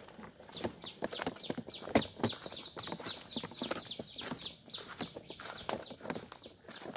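Footsteps and rustling through forest undergrowth, short crackles and knocks. Over them a bird gives a rapid run of high chirps, each falling in pitch, about five a second, fading after about five seconds.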